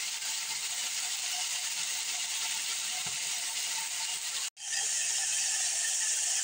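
Steady faint hiss and light crackle from a pan heating on a gas stove, cut off abruptly for a moment about four and a half seconds in.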